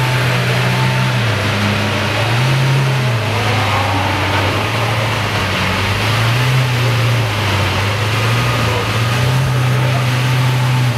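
Lamborghini Aventador's V12 engine running at low revs, its deep note rising and falling gently several times as the throttle is lightly lifted and eased off.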